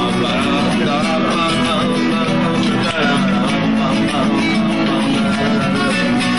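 A man singing to his own strummed nylon-string acoustic guitar.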